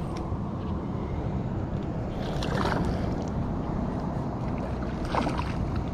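Steady low rumble of wind on the microphone and water lapping against a small plastic fishing boat's hull. Two short, louder noises come about two and a half and five seconds in.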